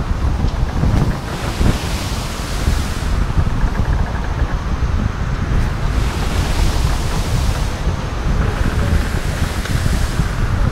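Ocean surf breaking and washing up the beach, its hiss swelling and fading a couple of times, under heavy wind rumble on the microphone.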